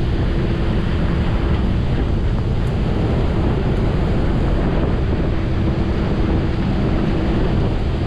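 Wind buffeting the microphone on the open deck of a tour boat under way, a steady rumbling noise with the boat's engine humming steadily underneath.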